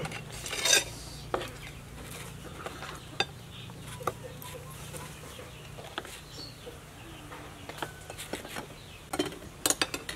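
Scattered clicks and clinks of hard crab shell pieces and utensils knocking against a serving platter as cooked mud crab is picked out of papaya salad. There is a louder knock about a second in and a quick run of clicks near the end.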